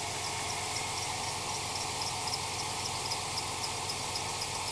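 2005 Chevrolet Silverado's 4.3-litre V6 idling, still cold shortly after a 15-degree cold start. A steady hum with a light, high-pitched ticking about five times a second.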